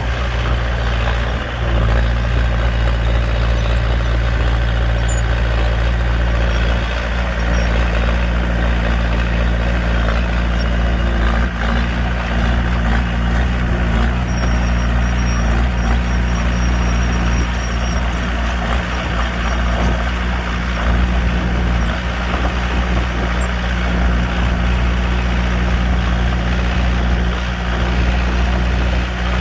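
D21-P mini bulldozer's diesel engine running steadily at a constant pitch while the machine spreads sand.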